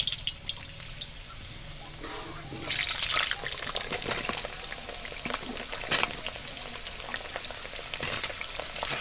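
Raw potato pieces dropped into hot mustard oil in an aluminium kadai, the oil sizzling and swelling in surges as each handful goes in, loudest about three seconds in. A few sharp clicks against the metal pan.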